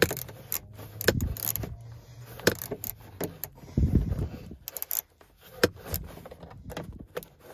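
Irregular metallic clicks and clinks, with a few dull bumps about a second and four seconds in, as a 7 mm socket loosens a sun visor mounting screw in a car's roof.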